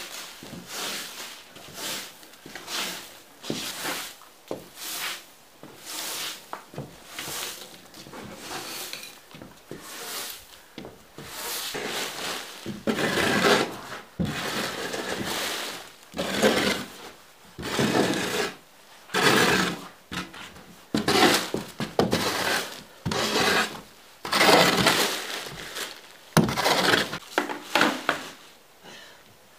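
A broom sweeping a concrete floor in repeated strokes. From about halfway, louder scraping strokes about a second apart, as a metal shovel is pushed across the concrete, gathering debris.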